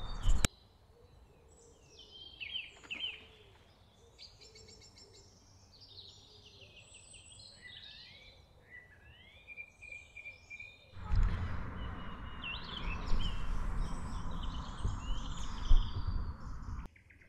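Songbirds calling and singing with short chirps and trills. About two-thirds of the way through, a rushing noise of wind on the microphone joins them and then cuts off abruptly near the end.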